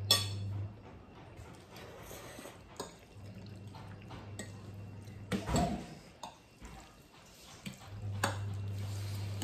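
Close-up eating of instant noodles: wet slurping and chewing, with a few sharp clicks of forks on glass plates, the biggest slurp about halfway through. A low steady hum cuts in and out underneath.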